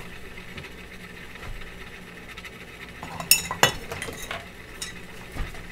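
Magnetic stirrer hot plate switched off, a faint hum as its stir bar spins down, then a few light metallic clinks about three seconds in as the bar settles on the steel plate.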